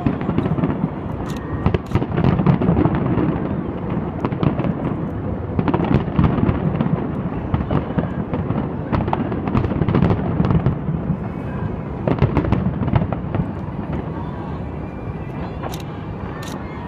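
Aerial fireworks bursting in a rapid, dense barrage of bangs and crackles over a deep rumble. It eases off a little near the end, where a couple of sharp cracks stand out.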